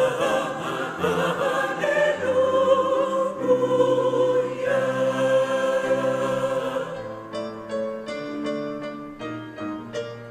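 A choir singing in harmony, holding long chords. About seven seconds in, the singing gives way to keyboard playing in short, evenly struck notes.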